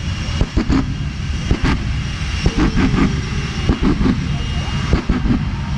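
Hot Streak jet truck's jet engine running with its afterburner lit: a loud, deep rumble with irregular crackling pops.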